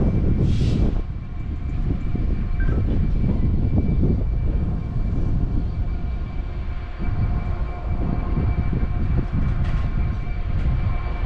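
Class 66 diesel locomotive's EMD two-stroke V12 engine working lightly as it propels a single wagon at low speed: a steady low rumble with a faint whine over it. A short hiss comes about half a second in.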